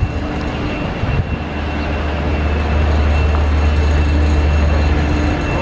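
Heavy-haul truck's diesel engine running as it slowly pulls a heavily loaded low-bed trailer, a steady low rumble that grows a little louder about two seconds in.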